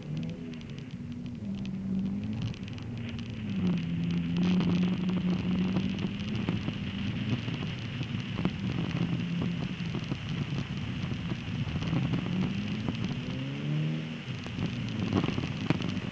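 Car engine running under changing throttle, its pitch rising and falling several times and climbing sharply near the end before dropping, over a steady crackle of studless Continental ExtremeContact winter tyres rolling on packed snow and ice.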